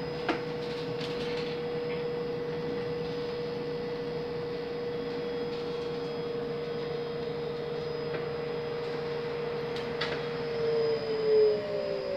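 Škoda 31Tr trolleybus heard from inside the passenger saloon: its electric traction drive whines at one steady pitch over rolling noise, with a few light rattles. Near the end the whine grows louder and starts sliding down in pitch as the trolleybus slows.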